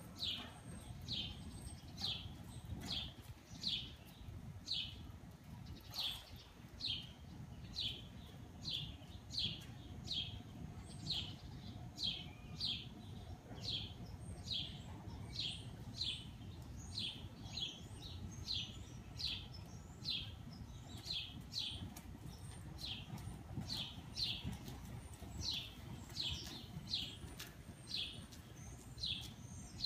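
A bird chirping over and over at an even pace, about one and a half short downward chirps a second, over a low background rumble.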